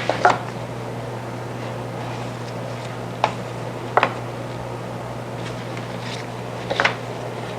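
Four light knocks of wooden drawer parts being set in place in a centring jig, over a steady low hum.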